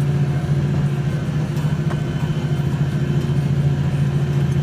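Tractor engine running steadily under load while pulling a plough, an even, constant hum.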